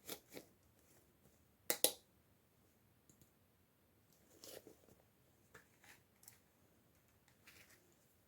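Toy packaging being handled during an unboxing: scattered small clicks and crinkles, with a sharp double click about two seconds in.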